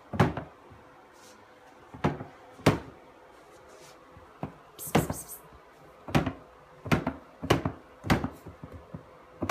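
Irregular knocks and thumps, about a dozen over several seconds, as a toddler bangs and pats with his hands on a tall bin and a wooden shelf. A short rustle comes about five seconds in.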